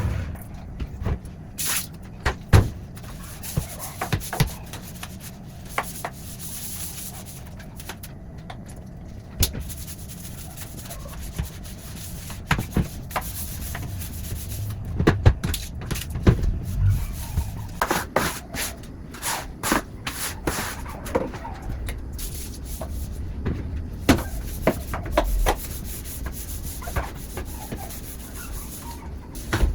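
Kitchen floor being scrubbed by hand: rubbing strokes with many short knocks and clatters scattered through, thickest in the middle.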